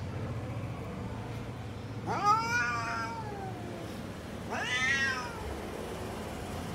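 Domestic cat meowing twice, about two and a half seconds apart, each call rising and then falling in pitch.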